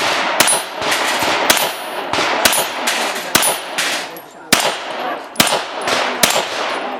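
Handgun fired in a steady string, about one shot a second, with some shots followed by the high ring of steel targets being hit.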